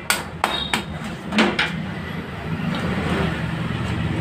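Hammer strikes on a motorcycle engine's crankcase, knocking the case halves apart: several sharp blows in the first second and a half, then a low steady rumble.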